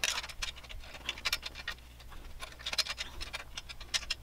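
Small metal clicks and ticks in short irregular clusters as an Allen key is worked in the screw of a scroll saw's lower blade-holder adapter, tightening it into place.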